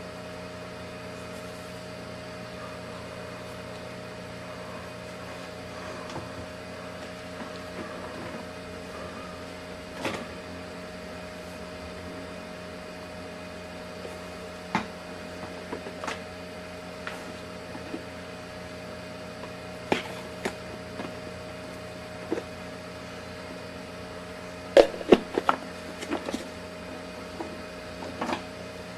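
A steady electrical or mechanical hum, with scattered sharp clicks and knocks and a quick run of louder knocks near the end.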